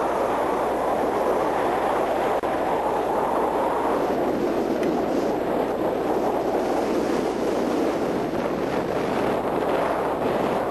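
Strong blizzard wind blowing hard and steadily, a dense rushing noise that does not let up.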